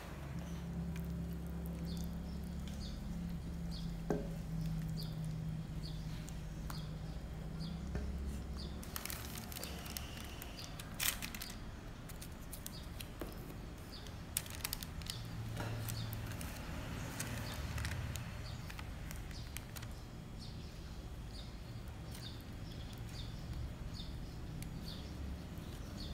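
Silicone spatula scraping and spreading thick brownie batter, first in a glass bowl and then in a parchment-lined metal baking pan, with soft wet scrapes and occasional light clicks, over a low steady hum. Faint high chirps repeat about once a second.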